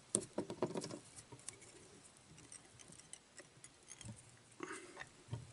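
Faint rustling and light ticking of fingers working a clump of spun deer hair around a hook in a fly-tying vise, busiest in the first second, then a few scattered ticks.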